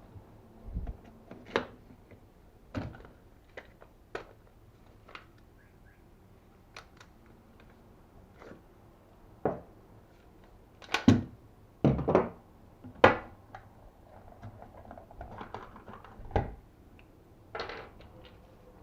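Irregular clicks and knocks from handling an airsoft RGM-40 grenade launcher replica, with a quick cluster of sharper knocks about eleven to thirteen seconds in.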